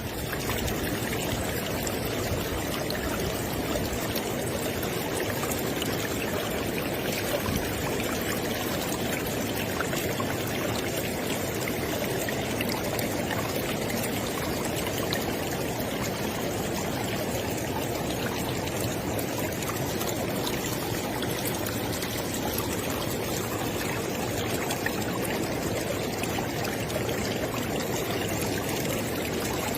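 River water flowing in a steady, even rush with a light trickle.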